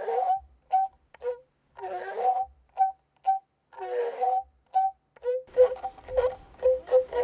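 A voice chanting in short repeated notes, mostly on two alternating pitches, with longer wavering phrases in between.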